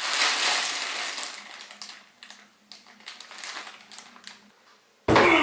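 Plastic meal-kit packaging crinkling and rustling as it is handled, dense at first and then thinning to scattered crackles. Near the end a loud sound gliding down in pitch cuts in.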